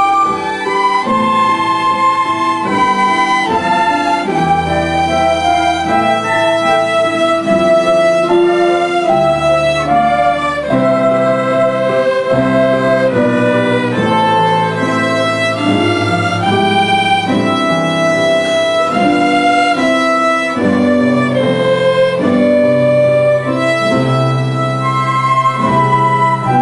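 A school orchestra playing, with violins carrying the melody over a lower accompaniment whose bass notes change every second or two.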